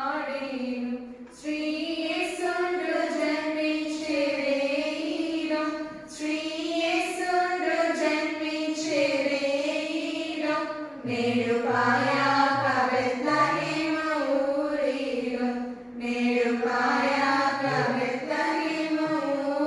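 Women's voices singing a Christmas hymn together, in sung phrases with short breaks about every five seconds.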